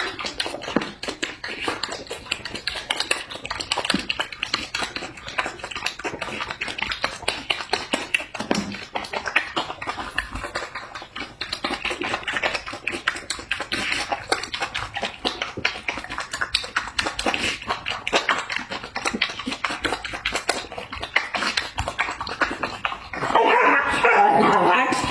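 Rapid, irregular wet clicking and smacking of a dog eating, chewing and lapping at food. About four-fifths of the way through, a louder, noisier sound starts.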